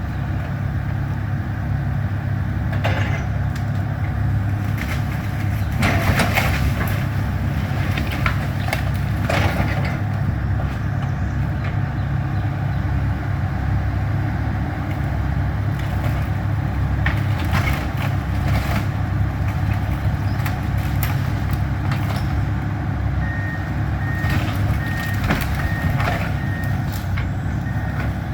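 Demolition excavator's diesel engine running steadily, with scattered cracks and crashes of a house being torn down. A reversing alarm starts beeping near the end.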